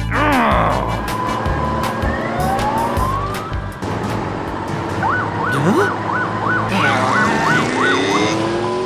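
Police siren sound effect, a rapid up-and-down wail starting about five seconds in, over background music with cartoon swooping and sliding sound effects, a falling swoop at the very start.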